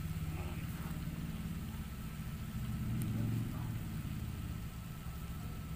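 A low, steady mechanical hum that swells slightly in the middle.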